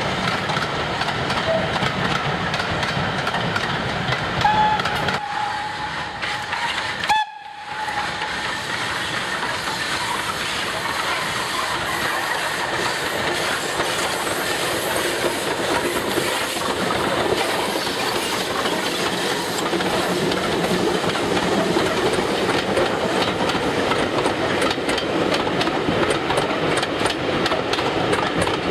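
A steam-hauled passenger train running past on the track: steady locomotive exhaust and rolling stock noise, with the wheels clicking over rail joints. A single held whistle note of about three seconds sounds some five seconds in.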